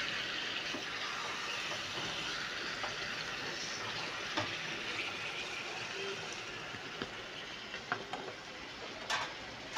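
Marinated chicken pieces sizzling steadily in hot oil and onions in a frying pan, with a few clicks and scrapes from a wooden spatula as the pieces are turned.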